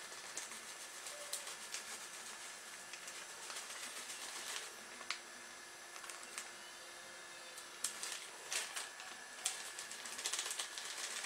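Small plastic packet of grated cheese being squeezed and shaken, giving faint crinkling and rustling with scattered light ticks.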